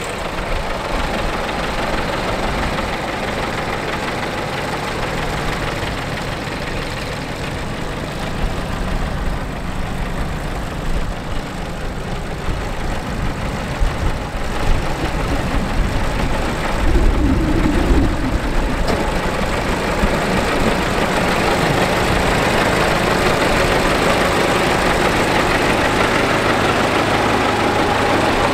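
Scania P380 truck's diesel engine idling steadily, with a brief louder rumble a little past the halfway mark.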